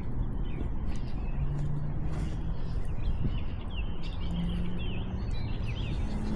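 Small birds chirping a string of quick notes over a steady rushing background noise; the chirping comes in the middle, with a faint low hum now and then.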